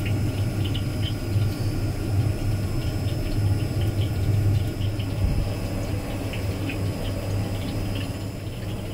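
Kitchen background noise: a steady low hum with scattered light clicks and ticks.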